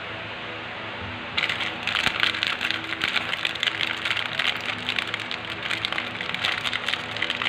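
Candy packaging being handled and crinkled: a dense, rapid crackling that starts about a second and a half in, over steady background music.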